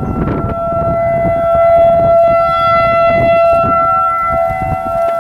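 Outdoor tornado warning siren sounding a loud, steady tone during a routine monthly test, over a low rumble on the microphone.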